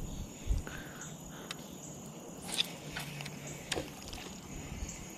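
A spinning reel being wound in on a fishing rod, with a few light clicks and knocks from the reel and rod handling over a quiet background.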